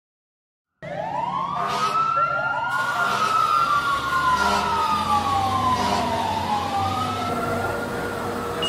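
Emergency vehicle sirens wailing, starting about a second in: two or more overlapping, each rising quickly and falling slowly in pitch, over a low steady hum.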